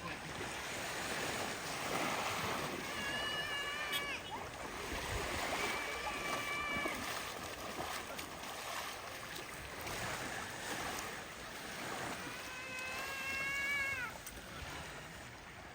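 Three long, drawn-out animal calls, each held about a second and dropping in pitch at the end, over a steady hiss of surf.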